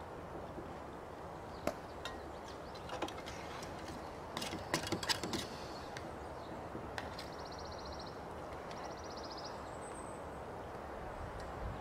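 Metal fork clinking and scraping in a metal camp bowl while eating, a few sharp clinks with a quick cluster about four to five seconds in, over steady outdoor background noise. Midway a bird gives two short high trills, then a brief high chirp.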